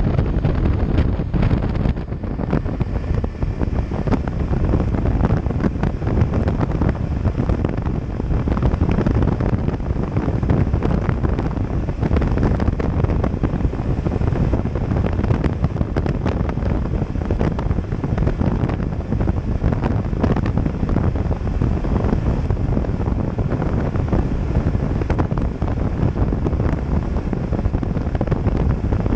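Wind rushing over the microphone of a motorcycle moving at road speed, a steady low buffeting that covers the engine and tyre noise.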